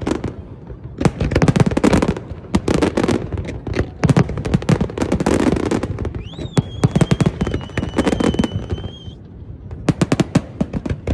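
Aerial fireworks display: waves of rapid bangs and crackling bursts, with a high whistle that jumps up and holds from about six to nine seconds in.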